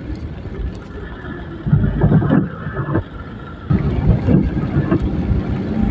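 Car driving on a wet road, heard from inside the cabin: a steady low rumble of engine and tyres, with two louder surges about two and four seconds in.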